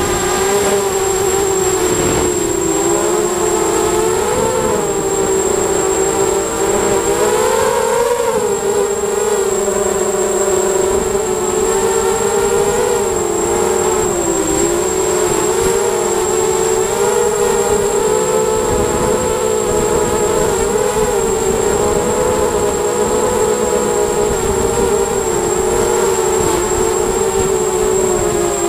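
ZMR250 mini quadcopter's brushless motors and propellers whining in flight, heard from the onboard camera, the pitch wavering up and down as the throttle changes. A thin steady high-pitched tone runs underneath.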